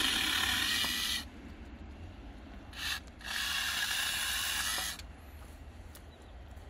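Chainsaw running in two bursts of about a second and a half each, with a short blip between, its chain rattling; quieter between the bursts.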